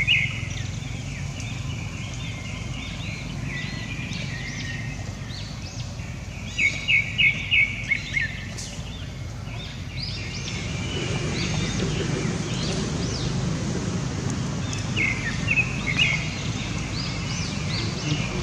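Runs of short, high chirping calls, several quick notes in each run and loudest about a third of the way in, over a steady outdoor background hiss.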